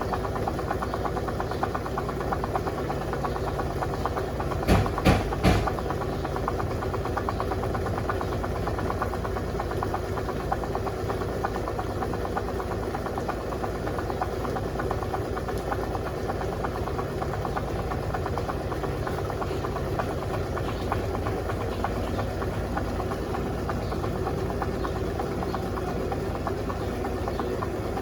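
Electrolux LTC07 compact top-loading washing machine running its towel pre-wash: a steady motor hum, with three quick knocks about five seconds in.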